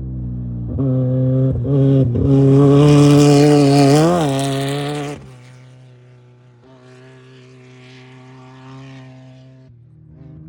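Off-road race vehicle's engine running hard as it passes close by, with a rushing hiss over it and a short rise in pitch near the end. It drops away sharply about five seconds in, leaving a steadier, quieter engine note.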